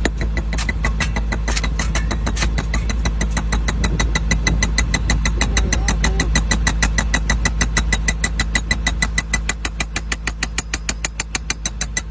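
Cable excavating machine's engine running steadily under a rapid, regular clatter of knocks, about six a second. The knocks are uneven at first and settle into an even beat about four seconds in.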